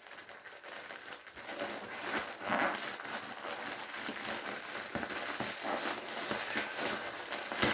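Package wrapping crinkling and rustling in irregular bursts as it is handled and opened.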